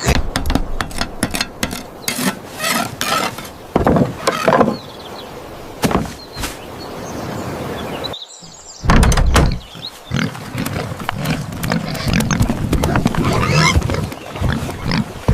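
Cartoon farm-animal sound effects: a pig oinking and squealing in a string of short calls, with a brief break about eight seconds in.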